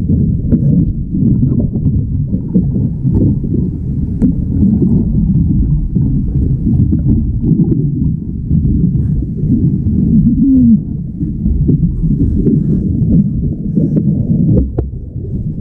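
Underwater sound heard through a submerged action camera: a loud, muffled low rumble and slosh of moving water with faint scattered ticks, and a brief squeak about two-thirds through.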